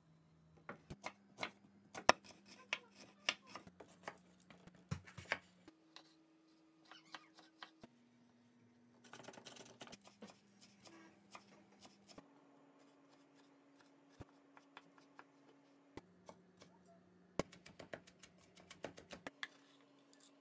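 Kitchen knife chopping vegetables and herbs on a wooden cutting board: sharp knocks of the blade on the board in irregular spells, densest at the start and again near the end.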